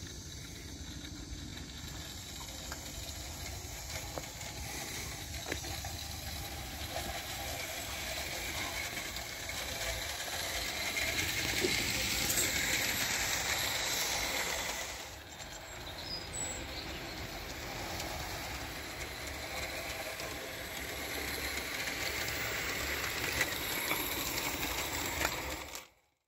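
A 16mm-scale live-steam Roundhouse D Class Garratt locomotive running on garden railway track under steam, with a steady hiss that eases briefly about halfway through.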